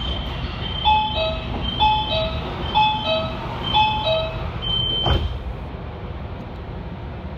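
Door-closing warning on a Shenzhen Metro Line 11 CRRC Zhuzhou electric train: a falling two-note chime repeated four times about a second apart, with a high intermittent beep, then a thud about five seconds in as the doors shut. A low rumble continues underneath.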